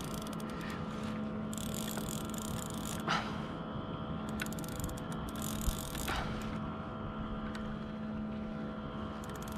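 Steady hum of a boat engine running, with two brief sharp knocks about three and six seconds in.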